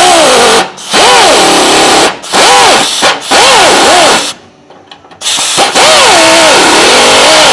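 Small cut-off tool with a thin zip disc cutting into the sheet-steel cowl panel of a 1932 Ford, making the first cut. It runs in several loud bursts with a pause of about a second in the middle, its whine wavering up and down in pitch as the disc bites into the metal.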